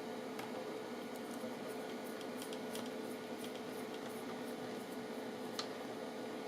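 Faint, scattered small clicks of a screwdriver turning screws into a laptop's chassis, over a steady background hum.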